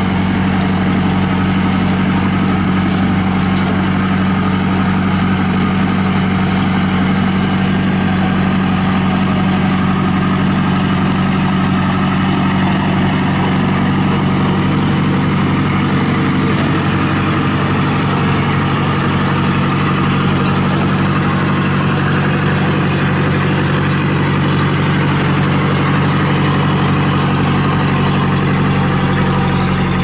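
Kubota RT 120 single-cylinder diesel engine running steadily at an even speed, hauling a heavy load of rice sacks.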